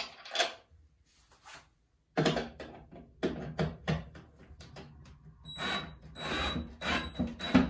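A few small clicks of handling the washer and bracket, then a cordless drill driving a screw through the washer and vanity mounting bracket into the wooden wall brace, in a series of short bursts.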